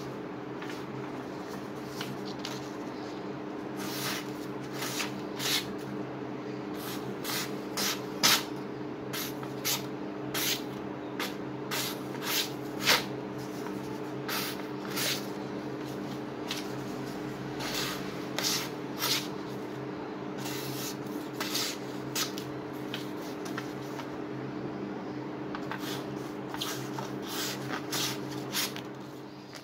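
Sheets of paper being sliced by the sharp edge of an axe ground from an old circular saw blade: a string of quick, crisp swishing cuts at irregular intervals, a sharpness test of the fresh edge. A steady low hum runs underneath.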